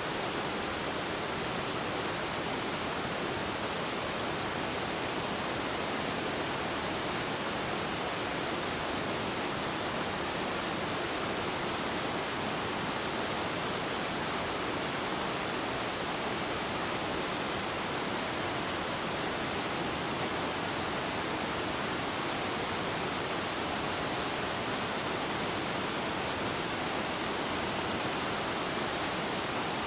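Steady rushing of a mountain creek cascading over boulders as white water.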